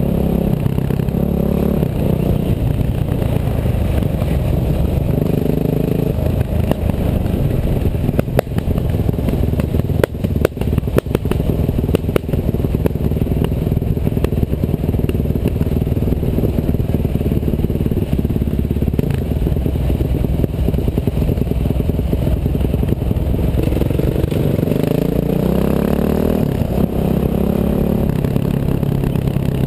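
Bulldozer engine running steadily under load, its note shifting up and down near the start and again near the end, with a run of sharp clattering knocks in the middle.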